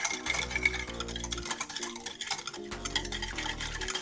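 Yeast, sugar and water being stirred together, many quick scraping clicks, over background music with sustained low notes.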